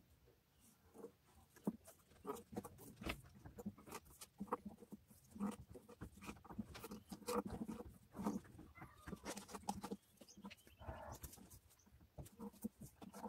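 Light clicks and taps of hand work on a wooden guitar neck during truss-rod fitting, with an animal calling now and then.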